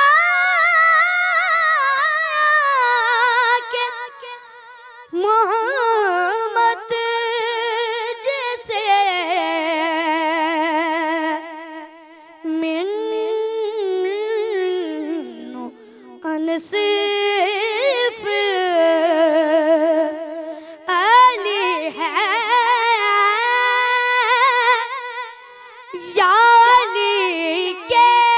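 A boy's high voice singing a devotional manqabat unaccompanied, in long phrases with a wavering, ornamented melodic line, broken by short pauses for breath.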